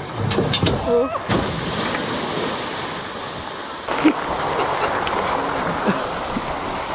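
Rushing water and spray from a Nautic Jet boat-slide boat skimming across the splash pool, heard from on board. The rush steps up about four seconds in.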